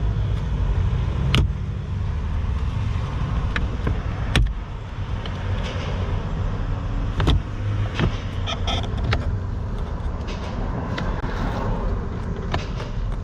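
Sharp plastic clicks and knocks from glove-box and interior trim parts being handled, with a brief squeak in the middle, over a steady low rumble.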